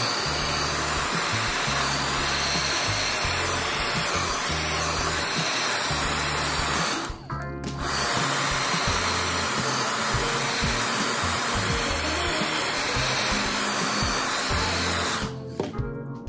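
Handheld hair dryer blowing steadily to dry a wet phone circuit board. It drops out briefly about seven seconds in and stops about a second before the end.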